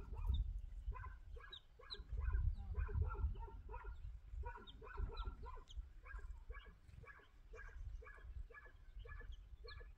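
An animal giving short, pitched calls over and over, about two or three a second, over a low rumble.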